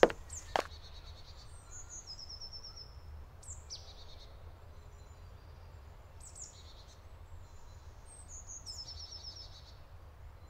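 Forest ambience: woodland birds singing short high trills at intervals over a faint steady low hum, with two sharp clicks right at the start.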